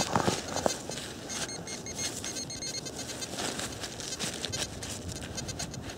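Gloved hand scraping and rummaging through loosened, half-frozen soil and dead leaves, a run of short scratchy rustles while searching for a detected find.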